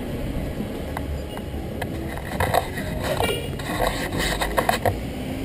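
Inline skate wheels rolling over a concrete sidewalk, a steady low rumble with sharp clicks as they cross the pavement joints. A few brief, higher-pitched voices come through in the middle.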